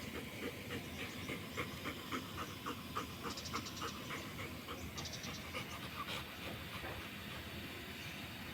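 A dog panting in a quick, even rhythm, growing fainter in the second half.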